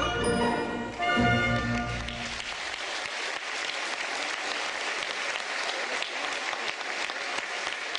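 Recorded music ends on a held final chord that dies away about two seconds in, and an audience breaks into steady applause.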